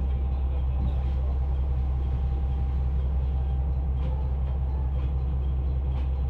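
Diesel railcar's engine running at a steady low rumble, heard inside the driver's cab as the train creeps to a stop and stands at the platform.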